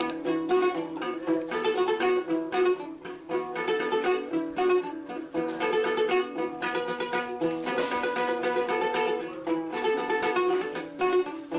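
Background music played on a plucked string instrument, a quick run of closely spaced picked notes.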